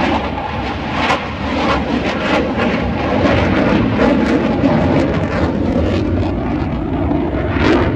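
Jet noise from a Dassault Rafale fighter's twin M88 turbofans during its display flight: a loud, steady rush with short, rough surges every fraction of a second.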